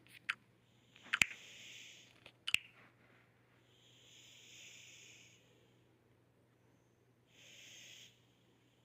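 A sick person's breathing close to the microphone: three long, hissy breaths about three seconds apart. A few sharp clicks fall in the first three seconds.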